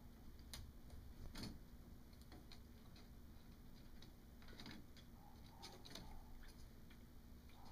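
Faint scattered ticks and taps of kittens scampering and batting a small ball about on carpet, over near-silent room tone.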